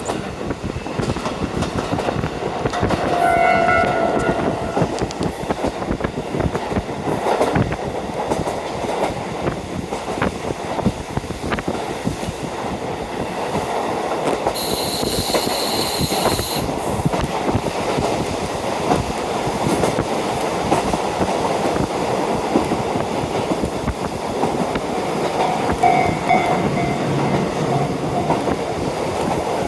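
KiHa 40 diesel railcar running along the line, heard from inside with the window open: steady wind rush and rolling noise with rail clatter. A short horn-like tone sounds about three seconds in and again near the end, and a brief high ringing comes about halfway.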